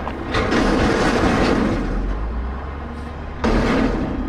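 Dump truck sound effect: a heavy truck's low rumble with rattling and clanking, jumping louder about a third of a second in and again near the end.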